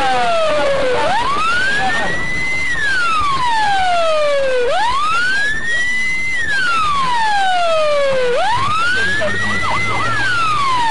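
Police car siren wailing in a slow rise and fall, about three full sweeps, each climbing and dropping over three to four seconds, with fainter overlapping sweeps behind it.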